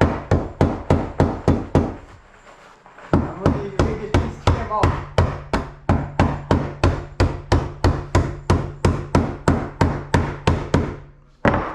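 Hammer blows striking repeatedly in a steady rhythm, about three or four a second. The blows pause briefly about two seconds in, then resume in a long even run.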